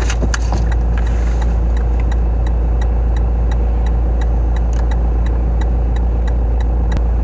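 Car engine idling with a steady low rumble, with a faint regular ticking about twice a second.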